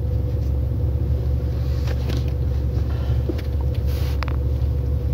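A steady low rumble with a faint constant hum above it, and a few faint clicks about two and four seconds in.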